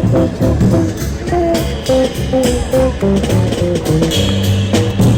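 Guitar music: a melody of single plucked notes over a bass line, the notes changing every few tenths of a second.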